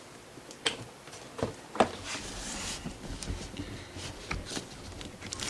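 Handling noise: several sharp clicks and knocks with rubbing in between, the loudest a little under two seconds in, as hands work on the reassembled smart display.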